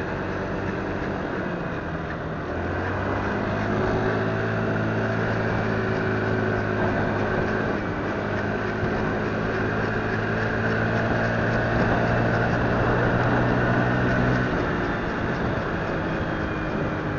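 Motorcycle engine running while riding. The engine note rises about three seconds in, holds steady, and eases off near the end.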